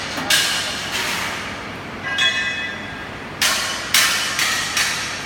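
A series of sharp metallic clanks and knocks, about six at uneven intervals, each ringing briefly as it dies away.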